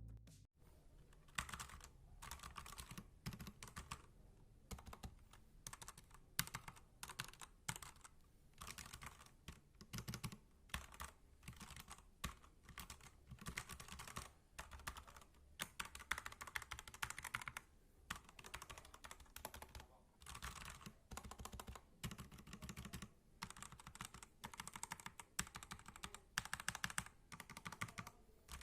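Typing on a Rexus Legionare MX10 mechanical keyboard with red linear switches: rapid, uneven key clacks in bursts broken by short pauses, fairly quiet.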